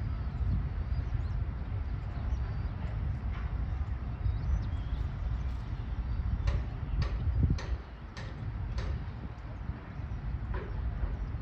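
Roller coaster construction work: a low, steady rumble with sharp knocks, a quick run of about five in the middle, roughly two a second, and a few fainter ones either side.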